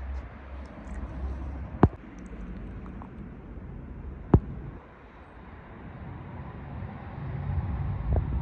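Low rumbling outdoor background noise, with two sharp clicks about two and a half seconds apart: the first a couple of seconds in, the second near the middle.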